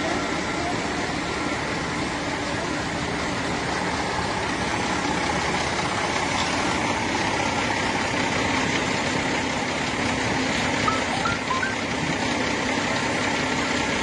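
Fire engine's motor idling, a steady, unbroken drone that holds the same level throughout.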